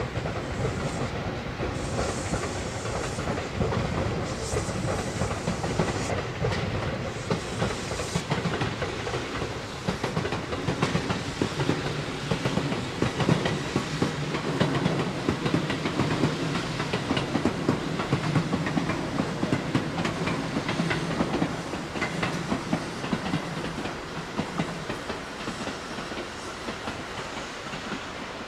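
Train running on the rails: a steady rumble and hiss with the clickety-clack of wheels over rail joints, and a low hum that dies away a few seconds before the end.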